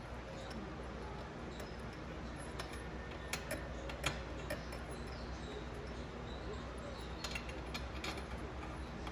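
Scattered light metal clicks and taps from hand tools and small parts being handled during work under a car, over a steady low hum.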